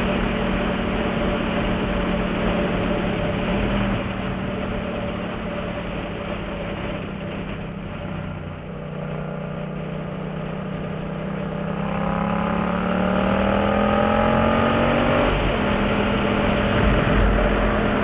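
Yamaha MT-07's parallel-twin engine through a Jeskap GP carbon exhaust, heard on the move with wind noise. It runs steadily, then goes quieter off the throttle for several seconds. From about two-thirds of the way in it rises in pitch under acceleration, with a brief break at an upshift before running steadily again.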